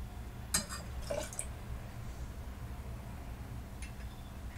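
Suntory gin poured from the bottle into a glass over ice cubes: a few short splashes and clicks in the first second and a half, over a steady low hum.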